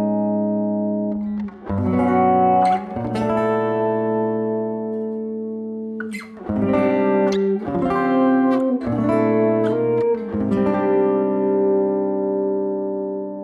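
Plucked-string instrumental music, guitar-led: chords struck and left ringing, with a new chord every half second to a second and a half, fading out near the end.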